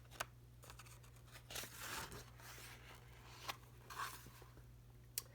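Faint paper rustling with a few light clicks: a picture book's pages being handled and turned.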